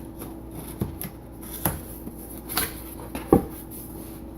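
Cardboard box being opened and its contents handled: four separate knocks and rustles, the sharpest about three seconds in, over a faint steady hum.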